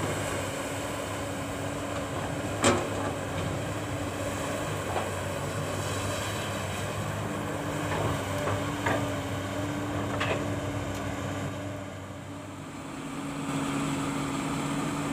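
Komatsu PC200 excavator's diesel engine running steadily while it works, with one sharp loud knock a little over two seconds in and a few lighter knocks later.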